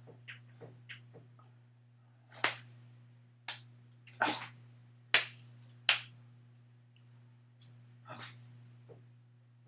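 A person's hands clapping and slapping: about seven sharp, irregularly spaced smacks, the loudest about five seconds in, after a few soft ticks in the first second and a half.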